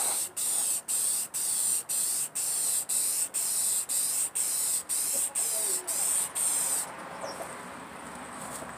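Aerosol rattle can spraying clear coat in a run of short bursts, about two a second, a high hiss that stops about seven seconds in. It is the first coat of clear going onto a freshly painted panel.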